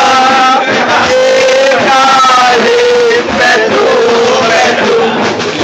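Loud music with a man singing in long, wavering held notes.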